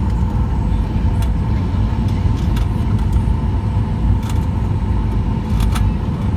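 Steady low rumble of an airliner landing, with a steady whine and a few light rattles and clicks.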